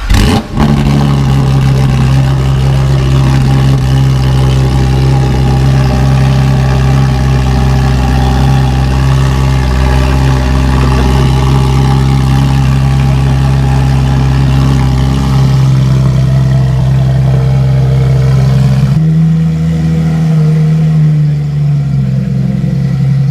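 Porsche 911 GT3 RS flat-six with a Dundon Motorsports straight-pipe exhaust starting cold, catching with a sharp flare and then idling fast and steady. About nineteen seconds in, the idle drops and settles to a lower note. The exhaust valves are still closed.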